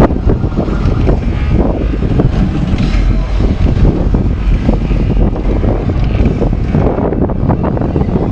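Steady low rumble of boat engines on the water, mixed with wind buffeting the microphone.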